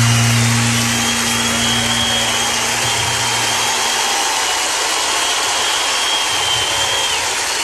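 Large audience cheering and applauding at the end of a song, a dense steady roar. A held low note from the band dies away about four seconds in.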